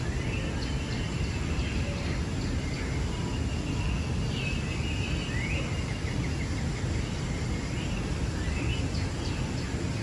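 Recorded forest birdsong played through the tunnel's soundscape speakers: scattered chirps and short rising and falling calls over a steady low rumble.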